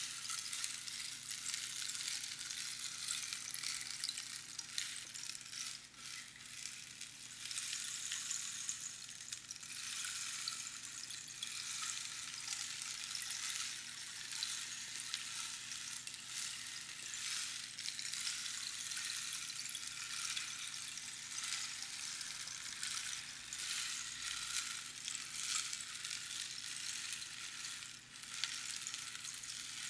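Rainstick: small pebbles trickling down past the pins inside a hollow dried-cactus tube, a continuous rain-like hiss of fine rattling that swells and eases, dipping briefly about six seconds in and again near the end as the flow tails off.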